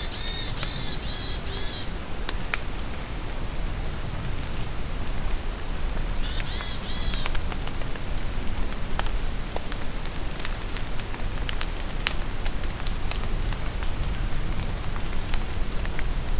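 Rain falling steadily in a forest, with scattered drips, and a songbird singing twice: a quick run of high, repeated chirping notes right at the start and again about six seconds in.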